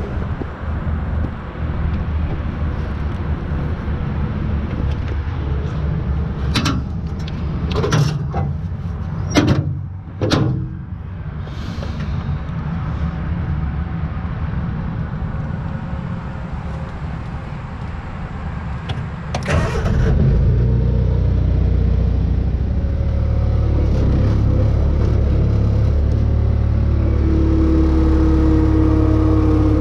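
Utility vehicle engine running steadily, with four sharp knocks of heavy wood chunks being loaded about a third of the way in and another about two-thirds in. The engine then gets louder and steadier as the vehicle moves off, with a rising whine near the end.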